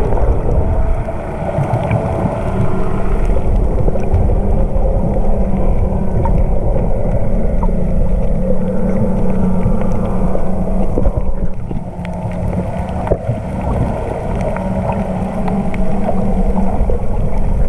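Muffled underwater sound picked up by an action camera in its waterproof housing: a steady low churning rumble of moving water with a constant low hum, and a few faint clicks scattered through it.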